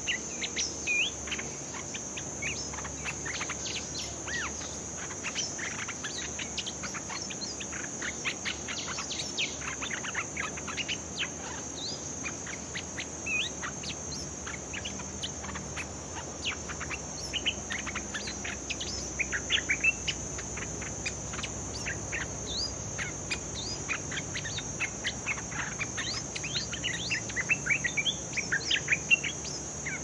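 Stripe-throated bulbuls calling: a busy run of short, quick chirps that come in clusters, over the steady high drone of insects.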